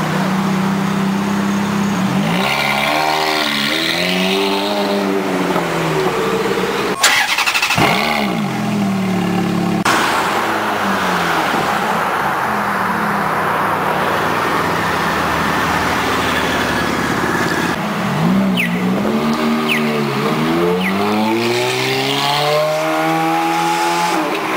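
Ferrari F430's V8 through a Tubi aftermarket exhaust: idling, then blipped several times with the revs rising and falling. Near the end it revs up repeatedly as the car drives off.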